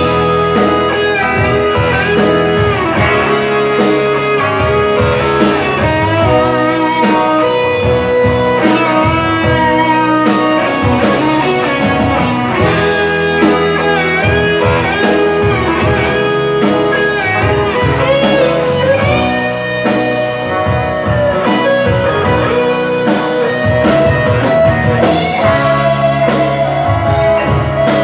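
Live rock band playing an instrumental passage: electric guitars with bending lead notes over bass and drums, loud and continuous.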